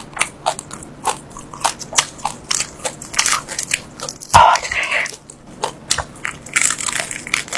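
Close-up chewing and biting of pork, with repeated wet, crunchy chews at about two to three a second and one louder crunch about four and a half seconds in.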